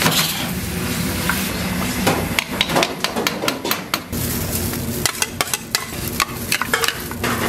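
Diced vegetables sizzling as they are stir-fried in a pan. From about two seconds in, a quick run of sharp clicks and scrapes follows as utensils stir food against metal pans and a steel bowl.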